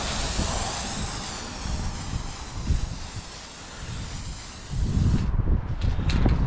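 Aerosol spray paint can spraying in one long hiss that cuts off suddenly about five seconds in. After it, low rumbling wind on the microphone and a few light clicks.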